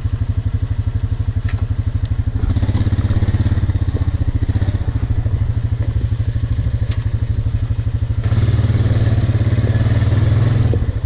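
ATV engine running steadily with an even low pulsing. It comes up louder about eight seconds in, as if given some throttle, and drops back just before the end, with a couple of faint clicks along the way.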